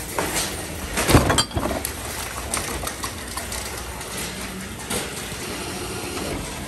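Reverse vending machine for bottle and can deposits running with a steady mechanical hum. A burst of sharp clattering knocks comes about a second in and a few lighter clicks follow, from empty bottles and cans being handled and fed into it.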